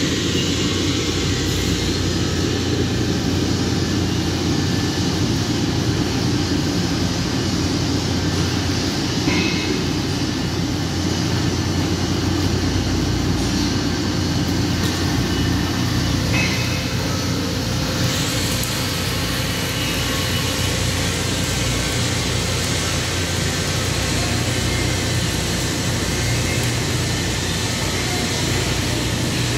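Steady din of flux-cored arc welding: a continuous crackling sizzle over a low steady hum, turning brighter and hissier about eighteen seconds in.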